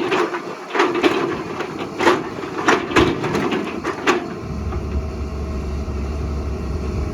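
Excavator working rock and soil: repeated crunching and scraping strikes over the machine's engine. From about four and a half seconds the strikes stop and a steady low hum is left.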